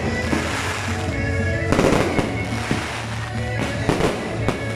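Aerial fireworks bursting and crackling, with a louder burst about two seconds in, over background music.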